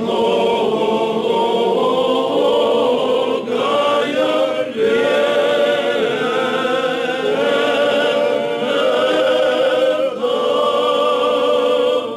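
A roomful of Orthodox clergy and delegates singing a church hymn together, unaccompanied, in long held notes.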